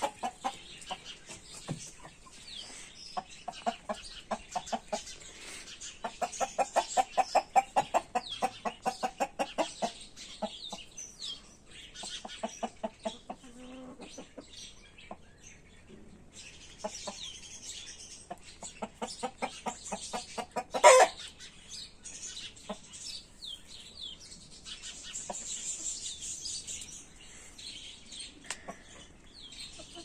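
Chickens clucking: runs of rapid clucks, loudest from about six to ten seconds in, with short high chirping calls scattered throughout. One loud, sharp call comes about twenty-one seconds in.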